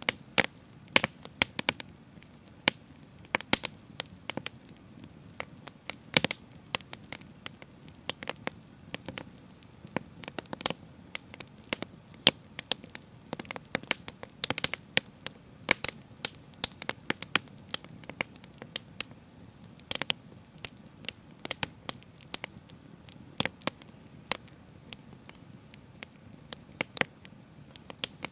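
Open fire crackling: irregular sharp snaps, several a second at times, over a low steady rush of flame.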